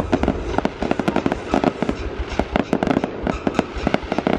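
Aerial fireworks exploding continuously, a rapid, irregular string of bangs and crackles with no break.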